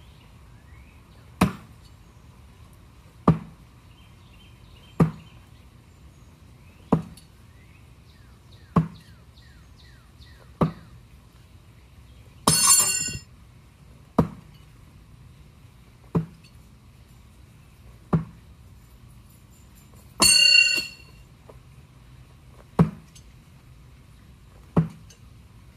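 Throwing knives striking a target board one after another, a sharp thunk about every two seconds. Twice, about halfway through and again about three quarters of the way in, a strike gives a ringing metallic clang instead.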